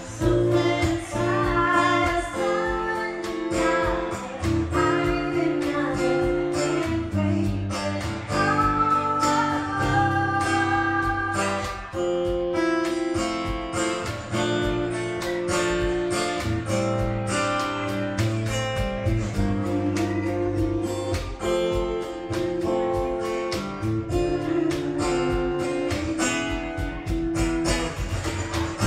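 Live band music: a woman singing over acoustic guitar, with a steady beat played on a cajón. The voice stands out most in the first ten seconds or so.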